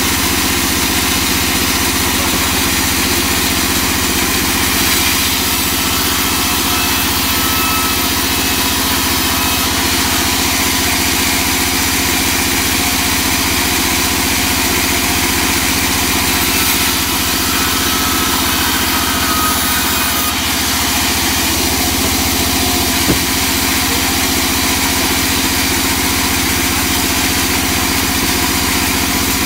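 Large vertical band saw running steadily, a constant machine drone with a low hum, with one sharp knock about 23 seconds in.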